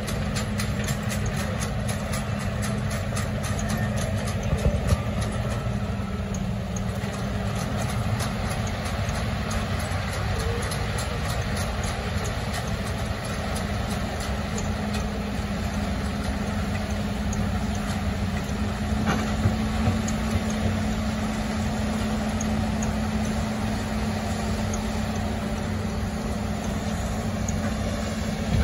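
Diesel engine of a Hitachi ZX210 amphibious excavator running steadily as the machine drives its pontoon tracks up a riverbank. A fast, even clatter from the tracks runs over roughly the first ten seconds.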